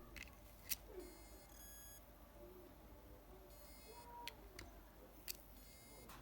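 Faint, short high-pitched beeps about every two seconds from an opened hard disk drive that is powered on but whose platter is not spinning: the beeping that signals the drive's motor failing to spin the disk. A few faint clicks in between.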